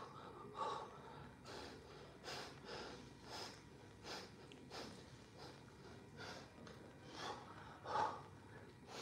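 A man breathing hard while holding a forearm plank: short, forceful puffs of breath, a little more than one a second, with a louder gasp near the end. It is the strain of a long plank hold.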